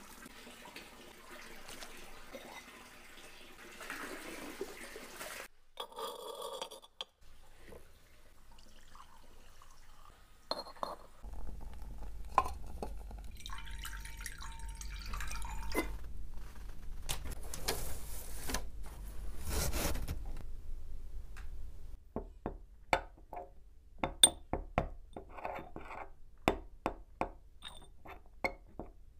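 Dried rose petals rustling as they are crumbled by hand, then water poured from a clay teapot into a ceramic dish. Near the end come many sharp clicks as brass incense tools tap and scrape against a ceramic censer bowl of ash.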